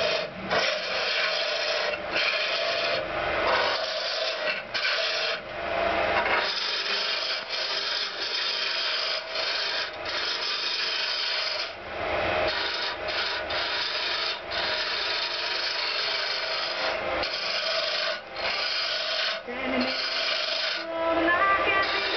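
Turning tool cutting a spindle blank for a buffet foot on a spinning wood lathe: a continuous rough cutting noise, broken every second or two by brief gaps as the tool lifts off the wood.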